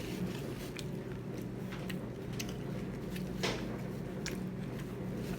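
Chewing and mouth sounds of a person eating, with irregular small clicks and smacks over a steady low background hum.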